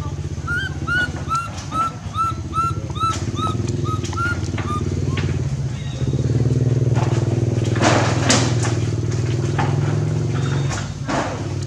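Steady low hum of a running engine, stepping up in level about six seconds in. Over it, about a dozen short high chirps in quick succession in the first five seconds, then a few brief rustling noises near the end.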